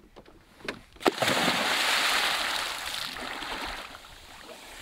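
A person in a wetsuit jumping off a sailboat into the sea: a sharp splash about a second in, then the water hissing and sloshing for a couple of seconds as it settles and slowly fades.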